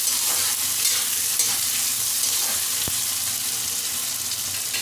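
Sliced onions, green chillies and curry leaves sizzling in hot oil in a metal kadai as a spatula stirs and scrapes them, sautéing the onions toward light pink for the sambhar masala. One sharp click a little before the middle.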